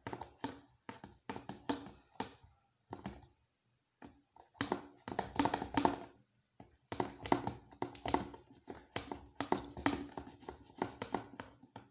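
Slime of wood glue and Persil laundry detergent being stirred in a container: irregular runs of clicking and tapping from the stirrer working the mixture, with a couple of short pauses.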